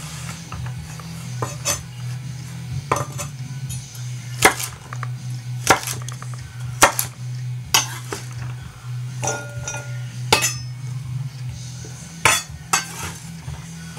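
Ikea Slitbar kitchen knife cutting food on a cutting board: about fifteen sharp, irregularly spaced knocks and clinks, some ringing briefly, over a steady low hum.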